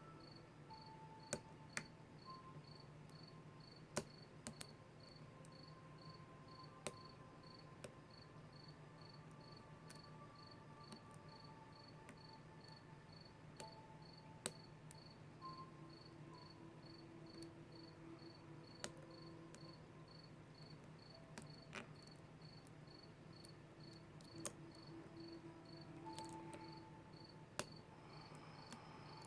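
Faint, sharp clicks, a dozen or so scattered irregularly, from a lock pick and tension wrench working the pins of a Kwikset SmartKey padlock. Under them a cricket chirps steadily, about twice a second.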